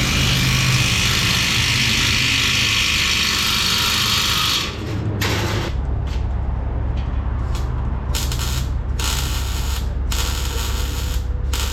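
Welding on the exhaust pipe: a steady hiss for about five seconds, then shorter bursts of hiss broken by brief pauses, over a steady low hum.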